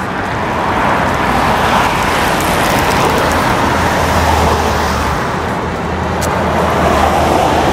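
Steady road and tyre noise of a car driving at highway speed, heard from inside the cabin, with a low engine drone underneath; the noise swells and eases slowly over a few seconds.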